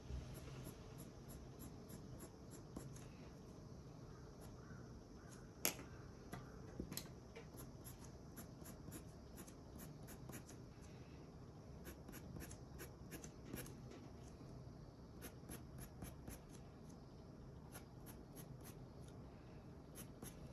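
Colored pencil drawing on paper: runs of short, quick strokes, faint, with one sharper click about six seconds in.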